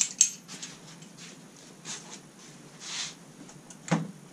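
Scattered light clicks, knocks and rustles of handling as a hand tool is hung back on a garage pegboard.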